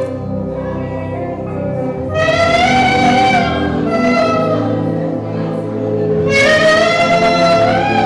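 Worship music: a lead line in long, wavering phrases over a steady band accompaniment.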